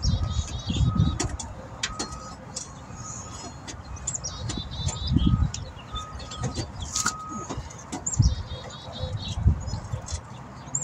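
Metal clunks and knocks as a car alternator is worked down into its mounting in the engine bay, with irregular low rumbling. Small birds chirp repeatedly in the background.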